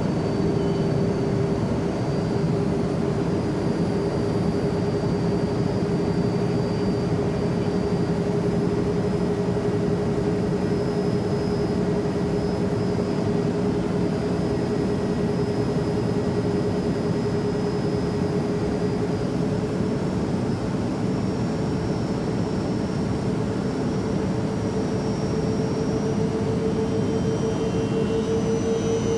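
Steady airplane engine noise: a constant rush with a steady hum that edges slightly higher in pitch near the end.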